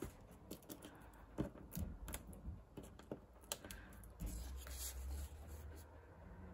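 Faint handling of paper and cardstock: scattered light clicks and soft rustles as small liner backings are peeled off foam adhesive dimensionals and a die-cut paper label is pressed onto a card front.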